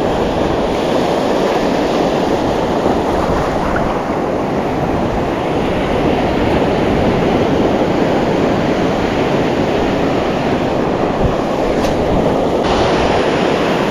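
Steady wash of ocean surf on the shore, with wind on the microphone.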